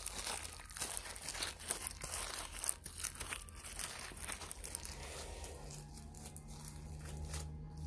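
Sticky homemade glue slime being kneaded and pulled apart by hand, a run of irregular crackling, tearing snaps that thins out after about five seconds, when a low steady hum comes in.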